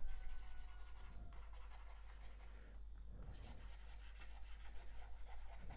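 Faint scratching of a stylus on a tablet as words are handwritten, with small irregular strokes and taps.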